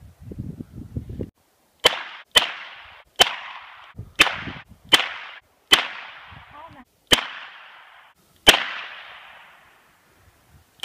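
Revolver shots fired one after another, about eight sharp cracks spaced from half a second to a second and a half apart, each with a short echo trailing off. A low rumble on the microphone in the first second.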